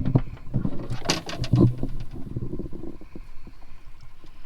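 Close handling noise: a run of clicks and knocks over a low rumble as live bait is handled and hooked. It is loudest in the first two seconds, then quieter.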